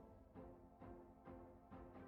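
Faint background music with a pitched note struck about twice a second.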